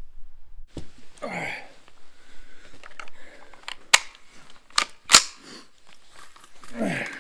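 Ruger 10/22 being loaded and its action worked: a handful of sharp metallic clicks and clacks, the loudest a little after five seconds, with handling rustle between them.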